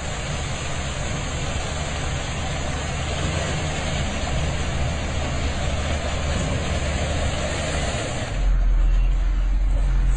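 Truck engine running steadily under a broad hiss; a little over eight seconds in, the hiss drops away and a heavier, deeper rumble takes over.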